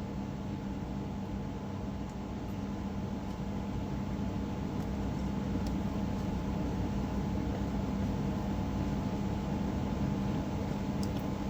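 Steady mechanical hum of a running electric appliance, with a constant low drone and a fainter higher tone over an even hiss.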